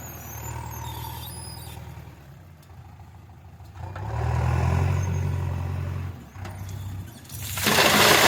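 JCB backhoe loader's diesel engine running while it works, its note swelling louder about halfway through as it takes load. A loud rushing noise lasts about a second near the end.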